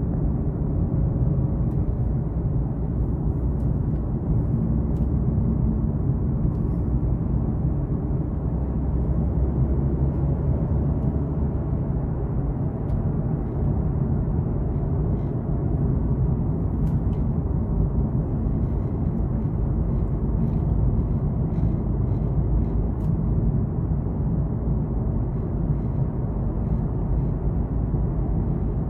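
Steady low road rumble inside a moving car's cabin: tyre and engine noise while driving, with a few faint small clicks.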